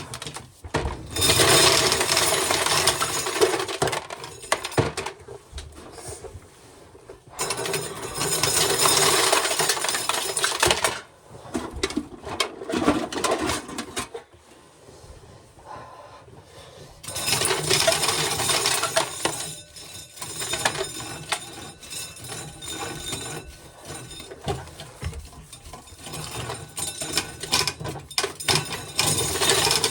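Corn sheller working ears of corn, a dense metallic clatter with kernels rattling out. It comes in heavy surges of a few seconds each, about a second in, near the middle and after the midpoint, with lighter rattling between them.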